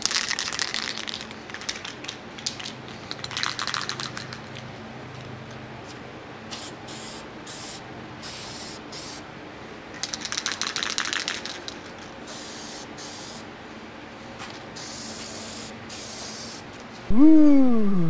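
Aerosol spray paint can (rattle can) hissing in short bursts, three strong sprays with fainter ones between, as a metal panel is painted. Near the end, a sudden loud cry that falls in pitch.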